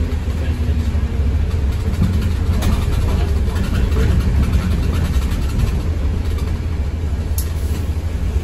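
Low, steady rumble of an ADL Enviro200 MMC single-decker bus's diesel engine and drivetrain, heard from inside the bus, with a sharp click near the end.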